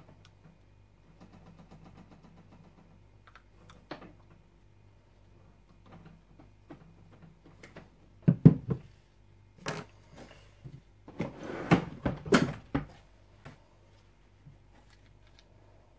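A series of knocks and thuds as soap-making equipment is handled on a bench, with the loudest cluster about halfway through, over a steady low hum.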